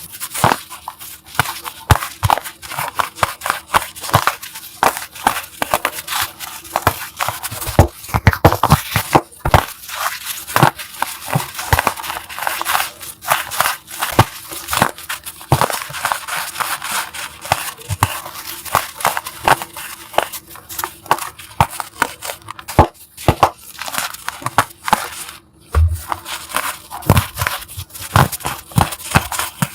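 Chalk being crushed for ASMR: a dense, irregular run of crisp crunches and crackles, close up.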